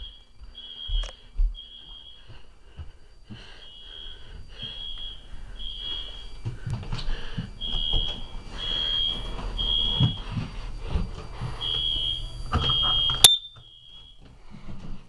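Smoke alarm sounding: a loud, high single-pitched beep repeating about once a second, with irregular gaps. Low knocking and rumble run underneath, and a sharp click comes near the end.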